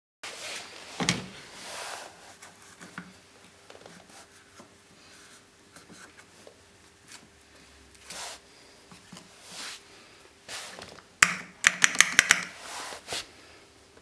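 Hands handling the tumble dryer's plastic drain pump and float unit: scattered plastic knocks, scrapes and rustles, with a quick run of sharp clicks a little after eleven seconds.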